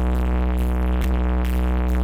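Electronic dance music played loud through a large stacked carnival sound system ("sound horeg") during a night sound check. A heavy sustained bass line dominates and moves to a new note about halfway through.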